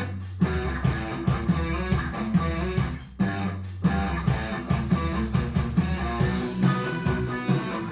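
Guitar-led instrumental music with a bass line and a steady beat, played back as an amplifier sound demo.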